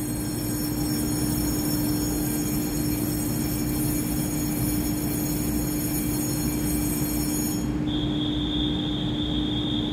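TRA EMU3000 electric multiple unit standing at the platform, giving a steady hum with a thin high whine over it that cuts off about seven and a half seconds in. About eight seconds in, a steady high beep starts and keeps sounding.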